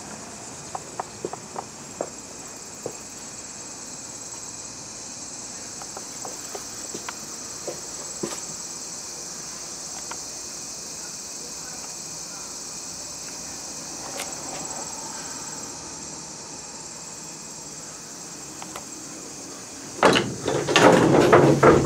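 Steady high chirring of crickets, with a few sharp knocks and footsteps in the first several seconds. Near the end a signal bell rings loudly: the bell cord pulled to tell the operator the car is ready to go.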